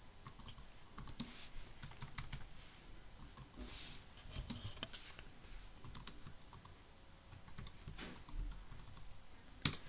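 Faint computer-keyboard typing: scattered single keystrokes typing out a short command, with one louder key click near the end.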